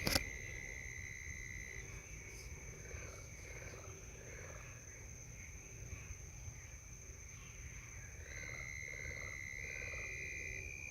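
Night insects, crickets, chirring in a steady high-pitched chorus. One of the tones drops out about two seconds in and comes back near the end. A brief click sounds at the very start, over a low steady rumble.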